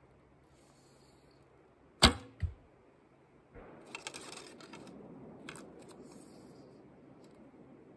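Recurve bow shot: a sharp twang-crack of the string on release about two seconds in, followed about half a second later by a duller thump as the arrow strikes its target. Then rustling and light clicks as another arrow is pulled from a leather hip quiver and nocked.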